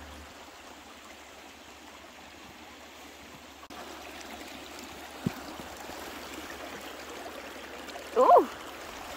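Shallow water at the Mississippi River headwaters trickling and babbling over rocks as it leaves Lake Itasca. The flow grows a little louder partway through. Near the end a person makes a brief vocal sound.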